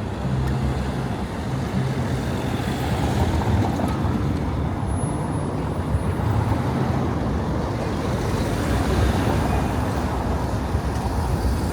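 Steady city street traffic: cars and larger vehicles such as buses running and passing, a continuous rumble of engines and tyres.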